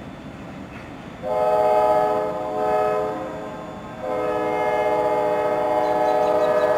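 Diesel locomotive's multi-note air horn blowing over the low rumble of the approaching train. A long blast about a second in, a short one, then a long blast from about four seconds in: the pattern of a grade-crossing signal.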